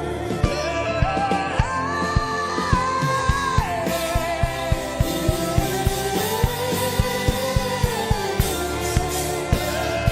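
Worship music: a slow, gliding melodic lead line over sustained chords, with a steady beat.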